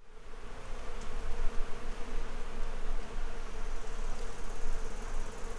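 A flying insect buzzing steadily at one pitch, its wings humming with a slightly fluttering loudness.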